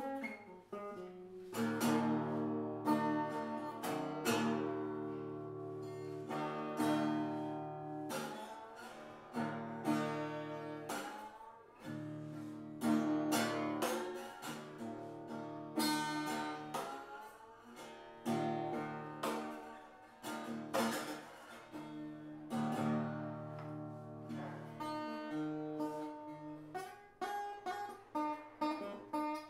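Background music: improvised acoustic guitar on a small koa-wood guitar, picked and strummed in quick notes over held bass notes, with no singing.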